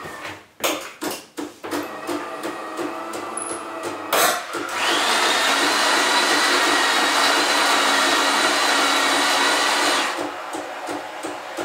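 DeLonghi Magnifica ESAM 4500 bean-to-cup espresso machine in its cappuccino cycle. It clicks and pulses, then from about four seconds in gives a loud, steady steam hiss with a faint whistle as it foams milk. The hiss cuts off abruptly near the end, and the pump goes back to pulsing about three times a second.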